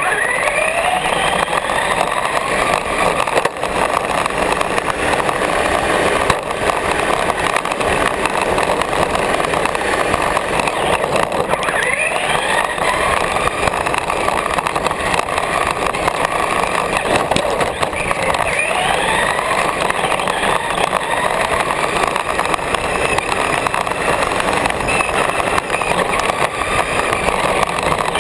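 Radio-controlled car's motor whining as it drives along the asphalt, over a steady hiss of wheel and road noise; the whine rises in pitch a few times as the car speeds up.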